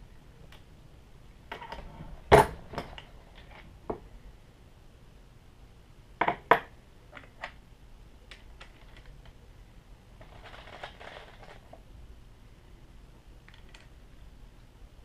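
Hornady single-stage reloading press worked by hand to seat and crimp bullets into .44 Magnum brass cases: scattered sharp metallic clicks and clinks of cases, bullets and the press, the loudest about two seconds in and a quick double clink around six seconds, with a short scraping rustle later on.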